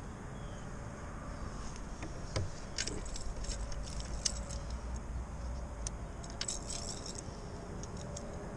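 Light metallic clicks and rattles from handling a baitcasting rod and reel, bunched between about two and seven and a half seconds in, over a steady low rumble.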